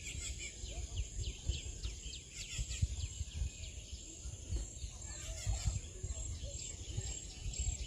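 Outdoor wildlife ambience: insects drone steadily at a high pitch while birds give many quick repeated chirps, over an uneven low rumble of wind on the microphone.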